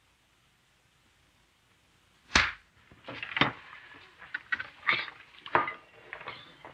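A single loud knock about two seconds in, then a run of clinks and clatters of plates, bowls and spoons as diners start serving themselves from a tureen at a table.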